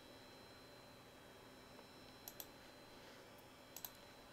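Computer mouse clicking: two pairs of quick clicks, about two seconds in and again near the end, over a faint steady hum.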